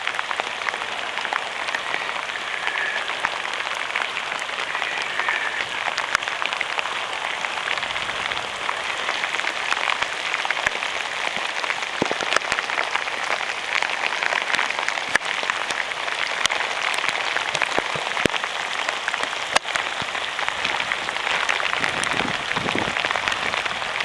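Steady, even hiss of water: rain falling and shallow muddy flash-flood runoff rushing over the ground, with scattered sharp drip ticks throughout.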